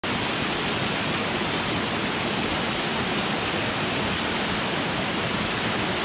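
Small waterfall pouring over boulders into a rock pool: a steady, even rush of falling water.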